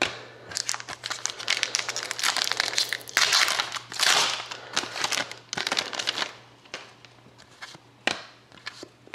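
Trading-card pack wrapper being torn open and crumpled: dense crinkling and crackling for about seven seconds, then a single click near the end.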